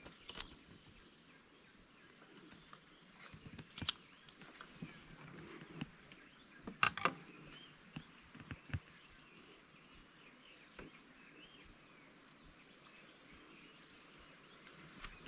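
Faint, steady high-pitched insect chorus, with scattered small clicks and knocks, the loudest a short cluster about seven seconds in.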